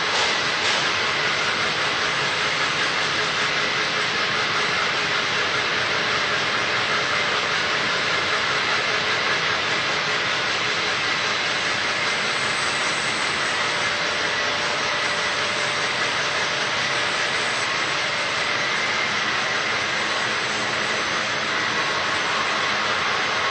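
Plastic-film flexographic printing press and bag-making machinery running: a loud, steady mechanical hiss with a faint high whine held under it.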